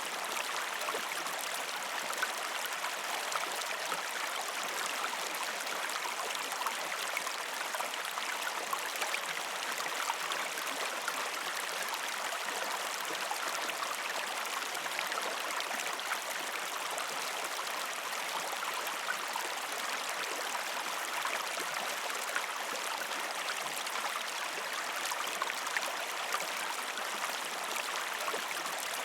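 River stream flowing over rocks: a steady rush of water with frequent small sharp ticks.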